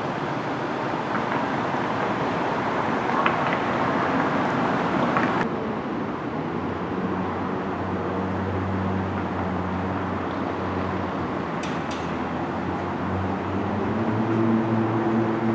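Steady outdoor vehicle noise: a low engine hum under a wash of noise, whose upper hiss cuts off suddenly about five seconds in.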